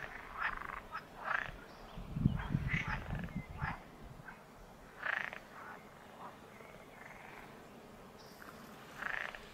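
Pond frogs croaking in short calls every half second to a second. A louder low rumble comes in from about two seconds in for a second and a half.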